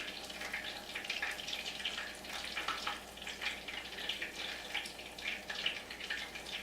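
Food frying in hot oil, a steady crackle and sizzle with many small pops.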